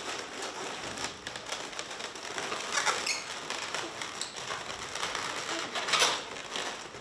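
Latex twisting balloons being handled, rubber rubbing against rubber as they are bent and pressed into place around a round balloon. The sound comes in irregular scratchy stretches, loudest about three and six seconds in.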